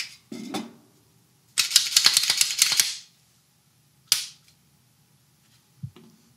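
Handling noise from a Glock 19 pistol and its magazines being set down on a wooden table: a sharp click and a knock, then a quick run of rapid clicks for about a second and a half, a single clack about four seconds in, and a soft thump near the end as the pistol is laid down.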